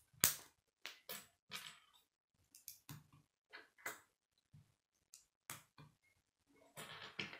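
K'nex plastic rods and connectors being handled and pressed together: a series of irregular short plastic clicks and snaps, one louder snap just after the start and a quicker cluster near the end.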